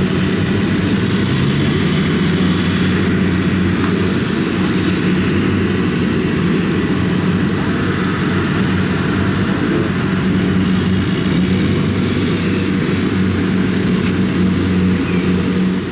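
Kubota DC-70 combine harvesters' diesel engines running steadily at working speed, a loud even drone, while the grain tank is unloaded into sacks.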